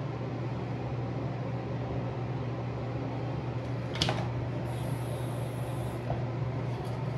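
A steady mechanical hum, like a fan running, with a single click about four seconds in.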